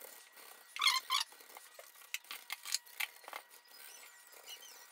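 A small knife blade scraping the inside of a cut plastic lid ring in a series of short, high-pitched scratching strokes. The loudest cluster comes about a second in.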